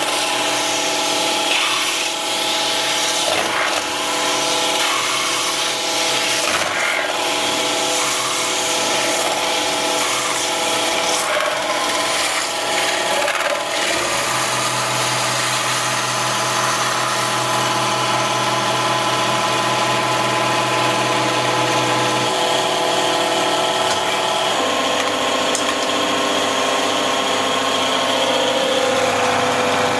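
Metalworking lathe spinning a tapered steel workpiece while a roller tool rubs and scrapes along it. The machine gives a steady whine of several held tones, with irregular scraping early on; the tone shifts about halfway through and again near the last quarter.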